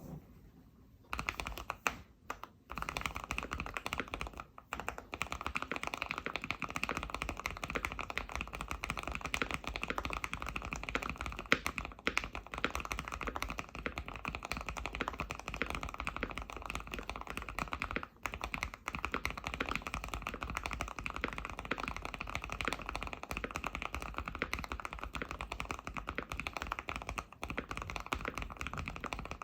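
Fast continuous typing on a Keychron Q1 mechanical keyboard with its stock aluminium plate, hand-lubed Aqua King V3 linear switches and GMK keycaps, a dense stream of keystrokes with brief pauses near the start and about halfway through. The board is dampened with foam, tape mod and switch pads, giving a muted, deep clack.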